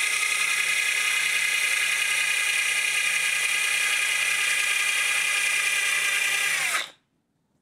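A 12-volt cordless drill-driver boring into a small piece of scrap wood: a steady motor whine that cuts off about a second before the end, its pitch dipping as it stops.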